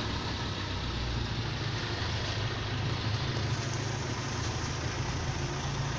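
Boat engine running steadily: a constant low hum under a steady hiss.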